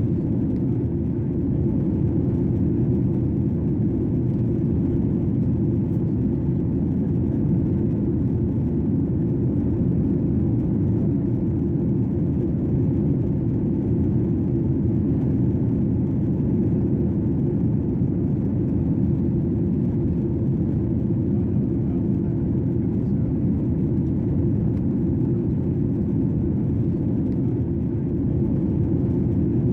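Airplane cabin noise in flight, heard inside the cabin: a steady, deep, even noise that does not change.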